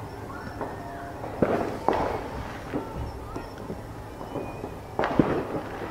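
Aerial fireworks shells bursting: two sharp bangs about a second and a half in, then two more about five seconds in, each trailing off.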